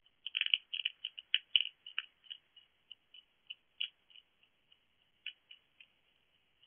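A hedgehog chewing dry food from a dish, making irregular crisp crunches. The crunches are quick and loud for the first couple of seconds, then come sparser and fainter.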